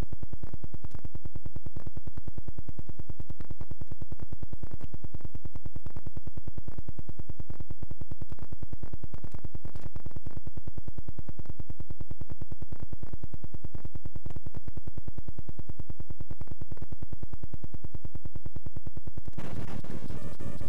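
Steady electronic buzz from the playback of a blank, unrecorded stretch of videotape: a rapid even pulsing with a steady hum under it. Near the end a brief burst of harsher noise breaks in.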